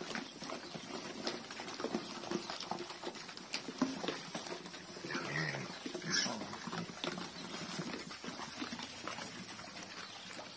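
A group of pigs eating wet mash from a tyre trough: continuous irregular smacking, slurping and chewing, with the occasional short grunt.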